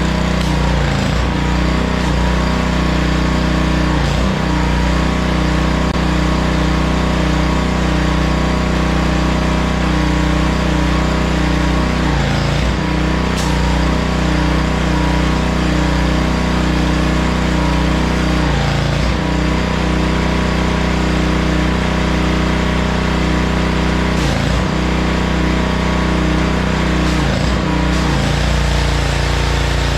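Honda pressure washer's small single-cylinder four-stroke engine running steadily at full speed, with a hiss of spray over it. The engine note dips briefly and recovers several times.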